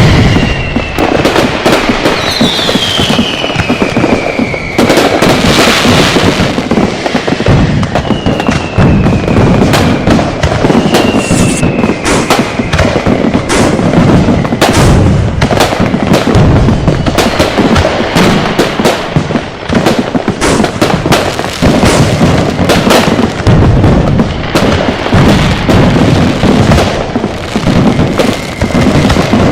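Dense, continuous barrage of firecrackers and fireworks going off, bangs overlapping in quick irregular succession. Several whistling fireworks sound in the first dozen seconds, each whistle falling in pitch.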